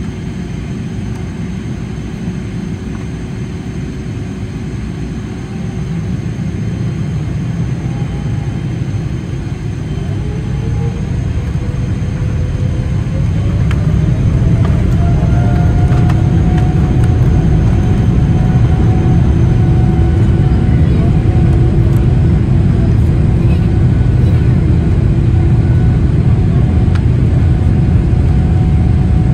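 Boeing 777-300ER's GE90-115B jet engines spooling up to takeoff thrust, heard from inside the cabin. A whine rises in pitch and the rumble grows louder over several seconds, starting about a quarter of the way in. Both then hold steady at full power.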